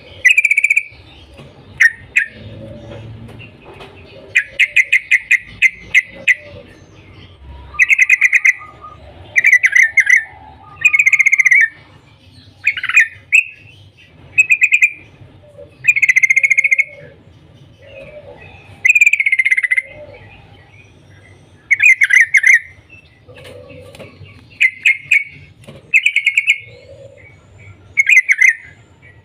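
Yellow-vented bulbul (trucukan) singing loudly: about fifteen short, bubbly phrases, many of them rapid stuttering strings of notes, with pauses of a second or two between them. This is the bulbul's call used to set other bulbuls singing.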